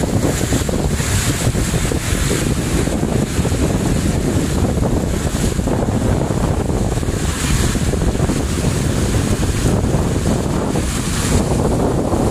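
Wind buffeting the microphone: a loud, steady, rumbling noise, heaviest in the low end.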